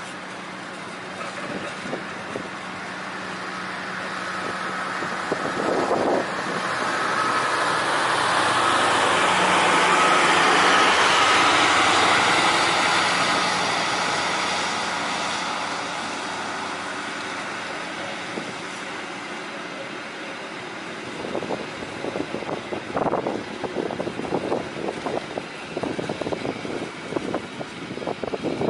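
Passenger train's stainless-steel coaches rolling past at close range. The rumble swells to its loudest about ten seconds in, then eases, and in the last seconds the wheels give a quick run of clacks over the rail joints.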